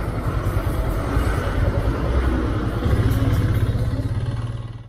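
Low, steady engine rumble from the Royal Enfield Himalayan's single-cylinder engine running, with a bus engine close alongside. The sound grows a little louder as the bus draws level, then drops away sharply at the very end.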